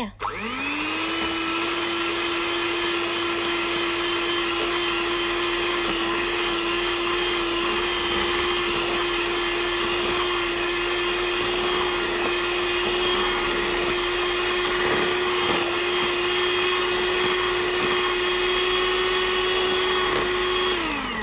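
Handheld electric mixer whipping a thick body cream in a plastic tub: the motor spins up just after the start, runs at one steady pitch, then winds down and stops near the end.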